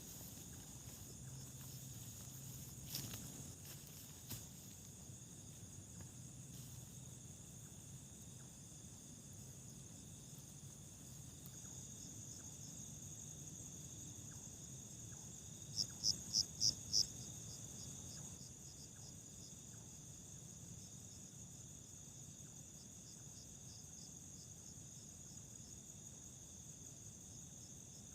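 Crickets and other night insects chirring steadily in a high, even drone. A little past halfway, five loud quick chirps ring out in a row, followed by fainter chirps repeating at an even pace; there are two faint clicks near the start.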